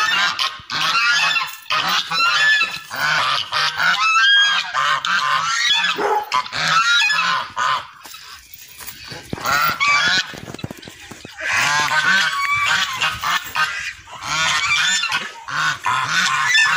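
Domestic geese honking loudly in repeated, overlapping calls, with a lull about halfway through. These are agitated guard geese raising the alarm.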